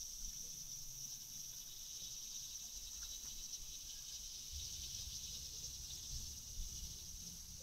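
A steady, high-pitched chorus of insects buzzing without a break, with a faint low rumble beneath.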